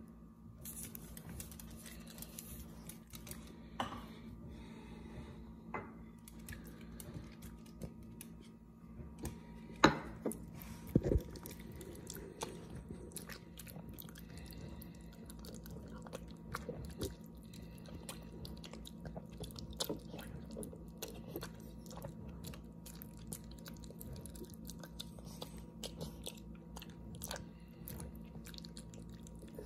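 Small dog eating chunky canned wet dog food from a plate: wet chewing, licking and lip-smacking clicks throughout, with a few louder knocks about ten seconds in.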